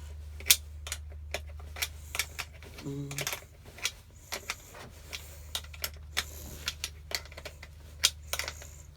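Irregular light metallic clicks and clinks of hand tools and metal scooter parts being handled during reassembly, about one or two a second, over a steady low hum.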